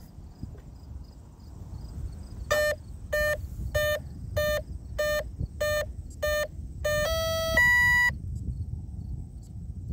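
Brushless electronic speed controller of an RC outrigger boat sounding its start-up tones just after the batteries are connected: eight short, evenly spaced beeps, then a longer tone and a higher closing tone.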